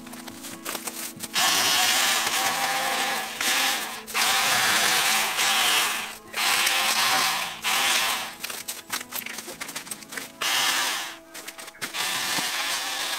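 Cordless electric pole chainsaw (VOLTAGA ET1612, 20 V battery, 8-inch bar) running and cutting through small regrown bamboo stems near the ground. It goes in about five bursts of one to two and a half seconds each, with short pauses between them.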